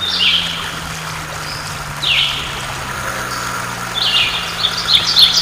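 Microlight trike's pusher engine idling steadily while it taxis. Over it, high chirps falling in pitch come about every two seconds, then quicker and louder near the end.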